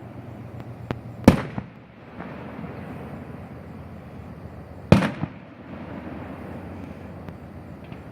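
Fireworks going off: two loud bangs about three and a half seconds apart, each followed by a couple of smaller cracks, over a steady low background noise.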